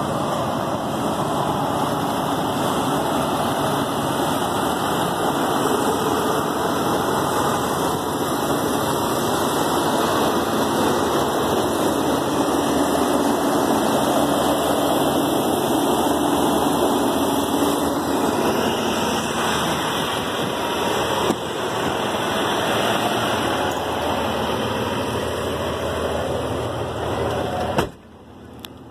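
Freightliner Cascadia semi truck's diesel engine idling with a steady, loud rumble. It drops sharply near the end, heard muffled from inside the cab.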